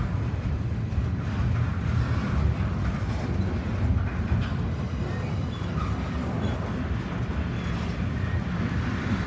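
Double-stack container cars of a freight train rolling past: a steady low rumble of steel wheels on the rails, with occasional faint clicks.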